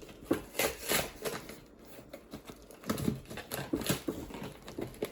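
Irregular taps, clicks and light rustling of a small parcel being handled and opened by hand.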